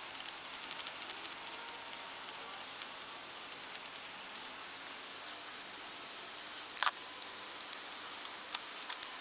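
Scattered light clicks and knocks of a VW Golf Mk5 1.9 TDI starter motor being worked loose from its mounting by hand, over a steady hiss. One sharper knock comes about seven seconds in.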